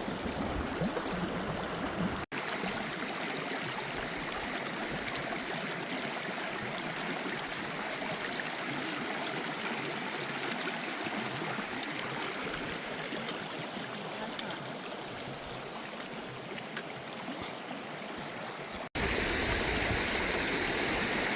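Creek water flowing and gurgling steadily, with a couple of faint clicks; the sound cuts out abruptly twice and is louder and fuller from near the end.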